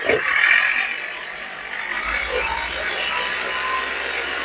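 Hyundai Grand i10's freshly rebuilt turbocharged engine revved on the accelerator right at the start, then settling back to a steady run. It runs without any abnormal noise now that the repair is done.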